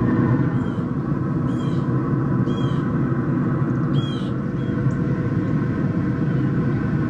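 Steady hum of a running Pit Boss pellet grill's fan, with a bird calling about five times, roughly a second apart, in the first few seconds.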